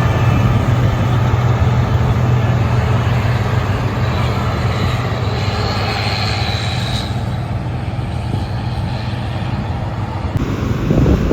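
Large diesel farm machine running steadily under load, with a deep even engine hum and a dense mechanical din. A faint high whine rises and fades midway.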